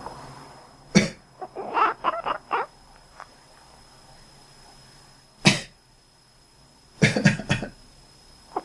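A person coughs and a cat answers with a quick run of short, quack-like chirps. There is one cough about a second in, followed by about five chirps. A single cough comes past the middle, and a burst of several coughs comes near the end.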